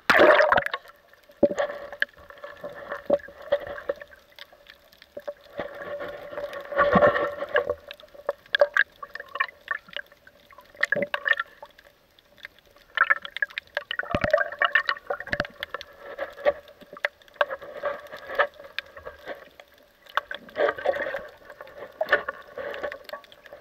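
Water gurgling and sloshing around an underwater action camera, with irregular clicks and crackles and louder swells about every seven seconds.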